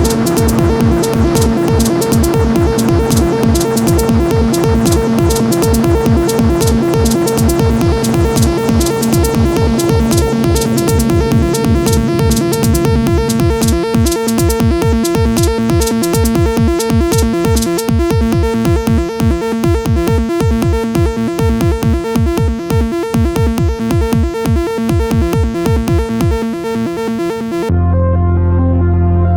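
Electronic techno music played live on drum machine and synthesizer: a driving, steady beat under a repeating synth pattern. Near the end the beat cuts off suddenly, leaving a sustained low synth drone as the set turns ambient.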